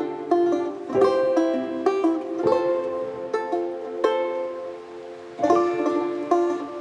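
Background music: a light tune of quickly plucked string notes, each struck sharply and fading.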